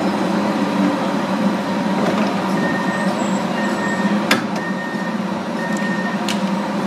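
A double-deck TER train stands at a platform with a steady hum and platform bustle. From about two and a half seconds in, a row of short, high beeps sounds about once a second, as the door warning does. There are two sharp clicks near the middle and near the end.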